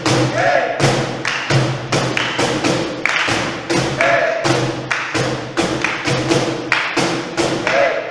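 Cajones, flamenco wooden box drums, played with bare hands: deep bass slaps and sharper slaps near the top edge in a fast, steady rhythm.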